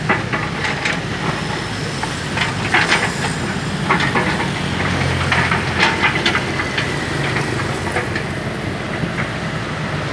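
Sany hydraulic excavator's diesel engine running steadily while it digs soil, with irregular sharp clanks and knocks from the working machine.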